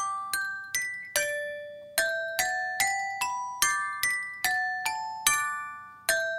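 Background music: a gentle melody of bell-like struck notes, each ringing and fading, about two to three notes a second with a couple of longer held notes.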